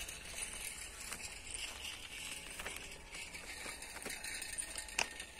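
Quiet outdoor background: a steady hiss with a few faint clicks, the sharpest about five seconds in.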